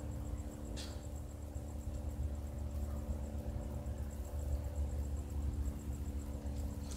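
Crickets chirping in a fast, even trill, over a low steady drone.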